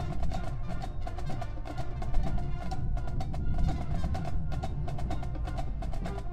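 Marching band playing: brass tones over a busy, steady drumline rhythm of quick strokes.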